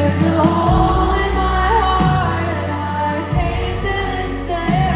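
Live pop band performance with a woman singing the lead vocal over bass, drums and guitar.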